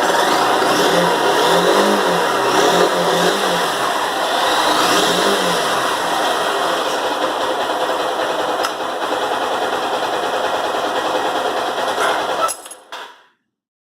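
Honda CB160F's 160cc single-cylinder engine running. The throttle is blipped several times in the first few seconds, then the engine runs steadier. The sound stops abruptly near the end.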